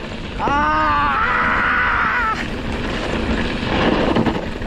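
A rider's drawn-out wordless yell, rising at the start and held for about two seconds, as the motorcycle slides on a slippery downhill dirt track. A motorcycle engine runs underneath, with tyre and gravel noise.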